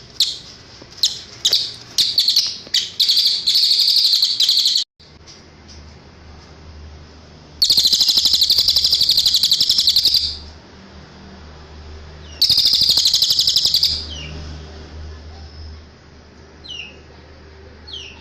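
Cililin songbird singing: a few sharp chirps building into fast, warbling trills of rapidly repeated high notes, two long trill phrases in the middle and a few faint chirps near the end.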